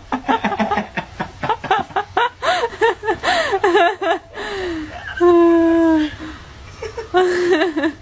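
Laughter in quick repeated peals for about four seconds, then a long held high note about five seconds in and a shorter one near the end.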